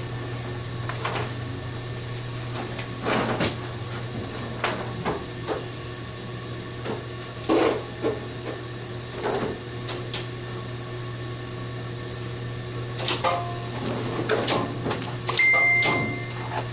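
Heidelberg single-colour offset press humming steadily while its cylinders and rollers are handled, with irregular knocks and clatters. A short high tone about a second long sounds near the end.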